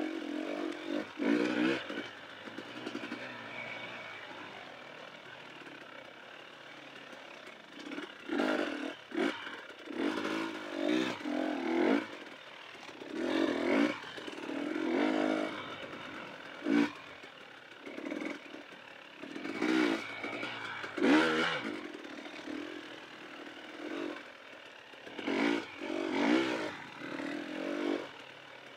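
Dirt bike engine revving up in many short bursts as the throttle is worked on and off, dropping back between them, with a quieter stretch early on. Knocks and rattles from the bike running over rough trail come through now and then.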